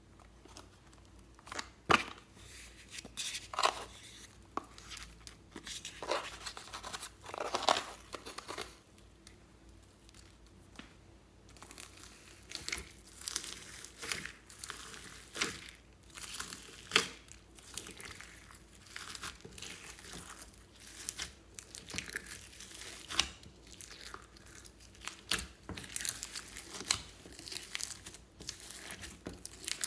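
Fluffy slime being kneaded and stretched by hand, giving irregular crackling, crinkling and sticky tearing sounds that are denser in the second half.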